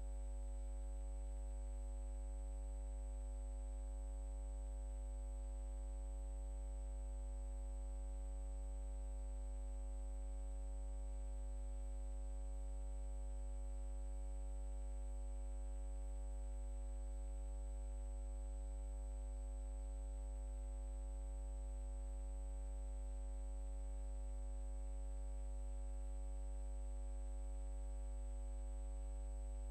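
A steady, unchanging electrical hum with a buzzy series of overtones and a thin high whine above it, holding exactly the same throughout.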